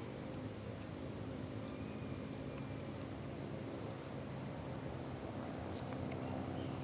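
Outdoor background: a steady low hum, with faint short bird chirps scattered through it and a thin, high insect-like tone held throughout.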